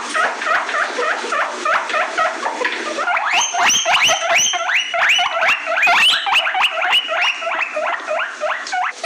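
Guinea pigs wheeking: a fast run of short rising squeals, about four a second, jumping higher in pitch about three seconds in. Wheeking is the guinea pig's call for attention or food.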